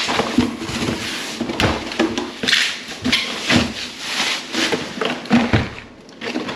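A cardboard box being opened and its packaging handled: irregular rustling and scraping with several sharp knocks, going quieter shortly before the end.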